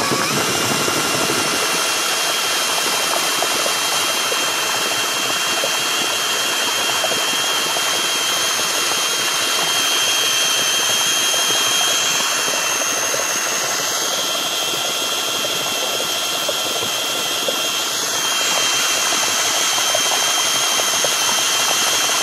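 An 18-volt cordless drill running flat out as an improvised boat motor, driving a propeller on an extension shaft. Its motor and gearbox whine rises as it spins up at the very start, then holds steady, over the hiss of water churned up by the propeller.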